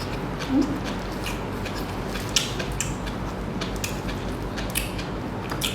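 Close-miked eating and food-handling noises: scattered small clicks and crackles at irregular moments over a steady low hum.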